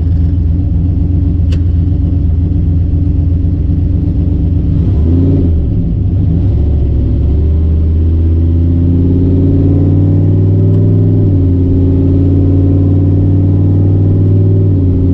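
Turbocharged 6.0 LS V8 heard from inside the car's cabin, running steadily at highway speed. The engine note dips about five seconds in, climbs gradually for a few seconds, then drops back about eleven seconds in and holds steady again.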